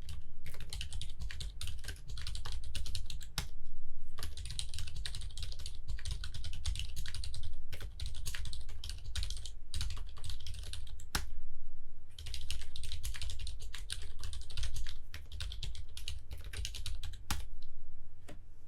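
Typing on a 40% mechanical keyboard whose case is a cardboard shipping box, fitted with Cherry MX Silent Red switches and clear ABS keycaps: runs of rapid keystrokes broken by a couple of short pauses.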